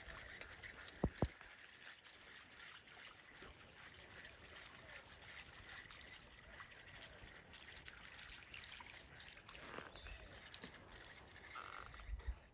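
Faint open-air ambience by the water: a steady high chorus of frogs, with scattered clicks and two sharp knocks about a second in.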